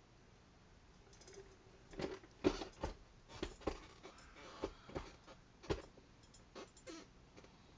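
Irregular light clicks and taps of small tools and objects being handled on a jeweler's workbench, starting about two seconds in, with a little rustling between them.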